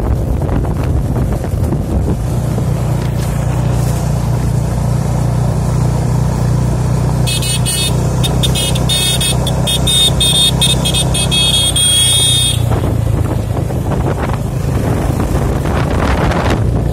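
Yamaha FZ25 motorcycles riding in convoy, a steady low engine drone with road noise. From about seven seconds in, a motorcycle horn honks in a rapid string of short beeps for about five seconds.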